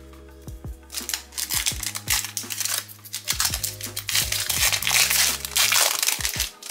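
Foil trading-card pack crinkling as it is handled and opened, loudest in the last couple of seconds, over background music.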